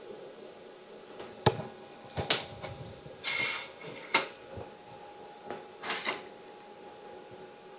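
Several sharp metal clinks and knocks as scrap steel parts are handled and set in place on the crab sculpture, with a brief harsh crackling burst about three seconds in.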